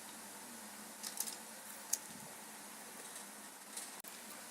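A few faint clicks of small plastic toy parts being handled, over a steady low hiss.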